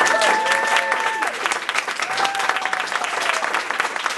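Audience applauding and cheering, with a long held cheer in the first second.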